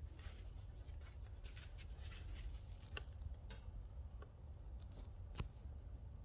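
Oak logs burning in a Leda wood-burning fireplace, crackling with irregular small snaps and a few sharper pops over a steady low rumble.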